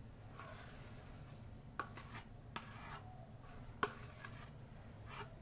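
A metal spoon scraping and knocking against a stainless steel bowl while a soft yeast sponge is scooped out: a few faint scrapes and clicks, the sharpest about two-thirds of the way through.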